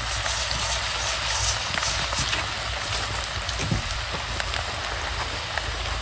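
Glowing wood coals in a fire pit crackling, a steady hiss dotted with scattered small ticks and pops.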